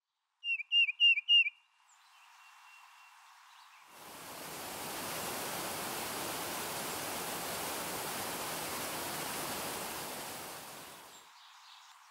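A bird gives four quick chirps about half a second in. Then, from about four seconds, the steady rush of a waterfall pouring into a pool, which fades out near the end.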